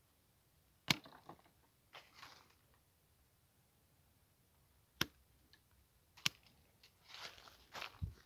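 Hand pruning shears snipping through bare quince branches: three sharp snaps, the loudest about a second in and two more near the middle and toward the end, with branches rustling between the cuts.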